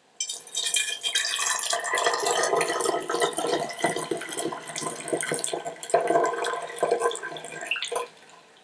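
Blueberry syrup poured in a steady stream into a glass bottle, splashing and gurgling as the bottle fills; the pour stops about eight seconds in.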